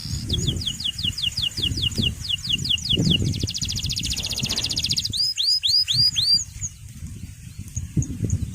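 Male canary singing: a run of repeated downward-sweeping notes, about four or five a second, then a fast dense trill, then four slurred down-curving notes. A low irregular rumble of background noise runs underneath.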